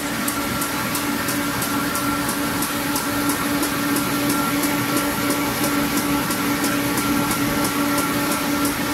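A 1959 Will MZAK-Fa-H paper ruling machine running reel to sheet at about 110 m/min: a steady mechanical hum with a rapid, regular high clicking, about three to four clicks a second.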